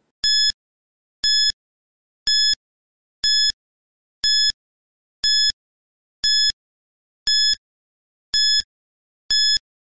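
Countdown timer sound effect: ten short, high-pitched electronic beeps, one a second, counting down the seconds.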